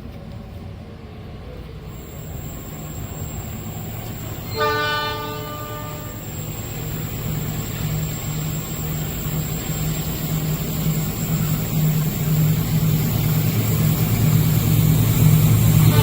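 An approaching train's diesel locomotive, its engine hum growing steadily louder. One horn blast lasts about a second and a half, roughly a third of the way in.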